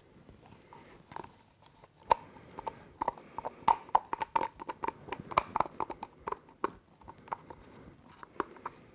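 A wooden stir stick scraping and tapping inside a small plastic cup, scraping out the last of the mixed epoxy resin. It makes a rapid, irregular run of sharp clicks that starts about a second in and thins out near the end.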